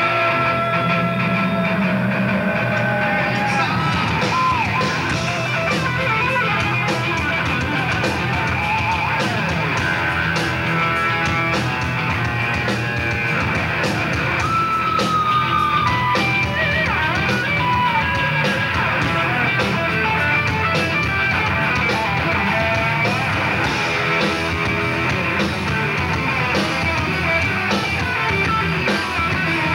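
A heavy rock band playing live: distorted electric guitars over bass and drums, with a lead guitar line that bends up and down in pitch.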